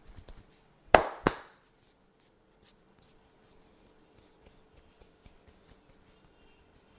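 Quick hand taps of a percussive massage die away, then two loud, sharp hand slaps land about a third of a second apart, the first the louder.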